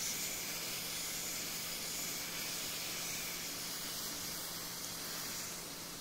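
Hot air rework station blowing a steady hiss of hot air through its nozzle onto an SSD's main controller chip, a dry reflow without flux or paste at 350 °C. A faint steady low hum runs underneath.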